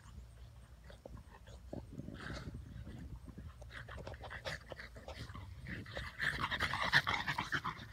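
Two French bulldogs play-fighting and panting, with short breathy dog noises that grow louder over the last two seconds.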